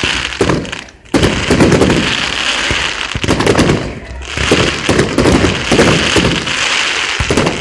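Fireworks going off in a dense, rapid barrage of crackles and bangs. There is a brief lull about a second in, after which the barrage runs on without a break.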